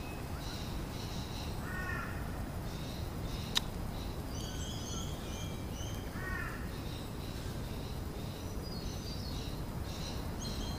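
Wild birds calling: repeated short high chirps, with two short lower calls about two and six seconds in. A single sharp click about three and a half seconds in, over steady low background noise.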